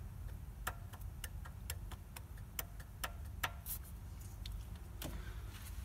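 Light, irregular clicks and taps, about a dozen over several seconds, over a steady low hum.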